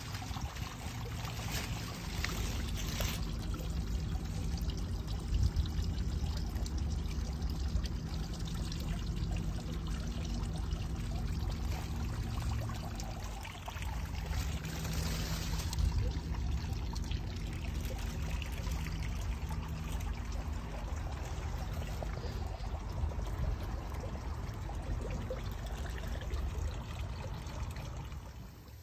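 Steady running water, a continuous pouring and trickling, with a faint low hum underneath.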